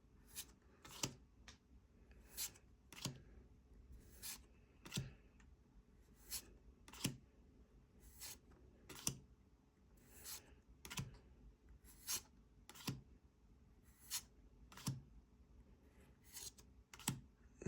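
Pokémon trading cards being flipped through one at a time by hand: a sharp card snap about once a second, unevenly spaced.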